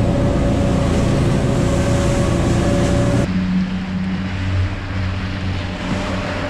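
Suzuki outboard motor running with the boat under way, with wind and rushing water over the engine note. About three seconds in the sound changes abruptly to a steadier, lower engine hum.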